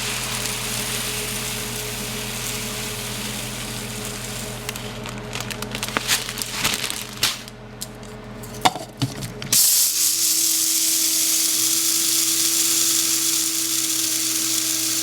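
A few clicks and knocks, then about two-thirds of the way in an electric coffee grinder switches on and runs steadily, grinding flax seeds into meal.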